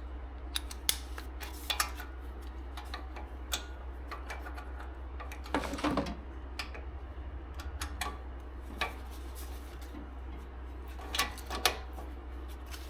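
Metal hand tools and sockets clinking and knocking against metal car parts during wheel bearing removal: irregular single clicks with a few louder clanks, over a steady low hum.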